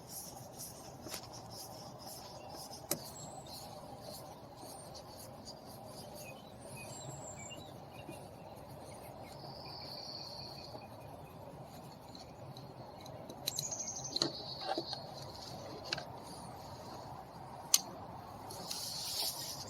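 Faint outdoor background of insects, with a few short high bird chirps. Occasional sharp clicks and a brief rattle of hand work about fourteen seconds in.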